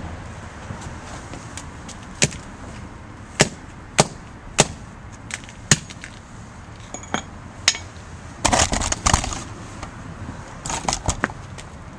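Sharp cracks and knocks of a broken LG Chocolate phone being smashed against paving stones: single hits every second or so, then a quick flurry of cracks about eight and a half seconds in and another near the end.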